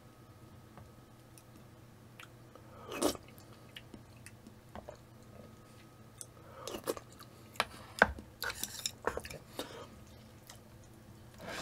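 Mouth sounds of a person tasting instant ramen broth from a spoon, with a short slurp about three seconds in and more sipping and chewing around seven seconds. About eight seconds in a sharp click, the loudest sound, then light clicks of utensils as chopsticks go into the noodles.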